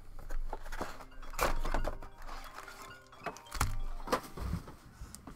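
Trading-card packs being handled and set down on a tabletop: rustling with several dull knocks, over faint background music.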